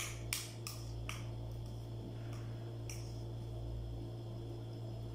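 Metal spoon clicking against a small bowl while eating: four sharp clicks in about the first second, two more a couple of seconds in, over a steady low hum.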